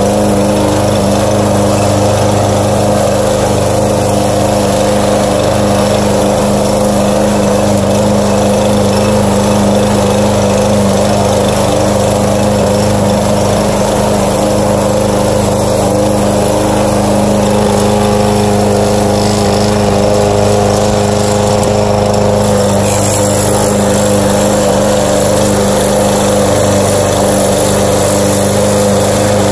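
Walk-behind gasoline rotary lawn mower engine running at a steady speed while the mower is pushed through grass, cutting. The engine note holds even throughout.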